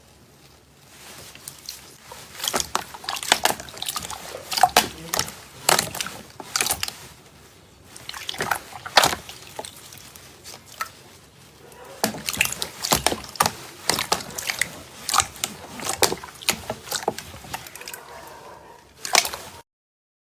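Hands squeezing and stretching slime: wet squelches with many sharp pops and crackles of trapped air, coming in flurries with short pauses, then cutting off suddenly near the end.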